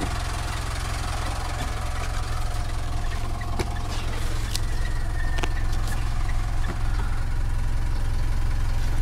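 2012 Mitsubishi Montero Sport's 2.5-litre four-cylinder turbodiesel, direct-injected with a variable-geometry turbo, idling steadily in Park below 1,000 rpm.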